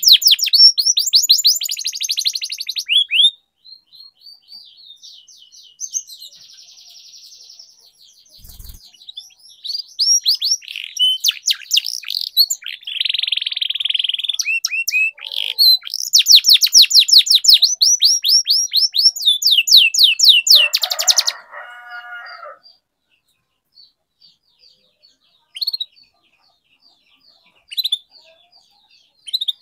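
Domestic canary singing a long song of rapid trills and rolls in loud phrases, with a quieter stretch early on. Near the three-quarter mark the song ends with a short, lower, rougher note, and only a few faint chirps follow.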